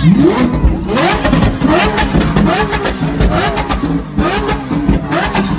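Car engine revved hard in quick repeated throttle blips, its pitch rising about twice a second, with sharp exhaust cracks between the blips. Heard from inside the cabin.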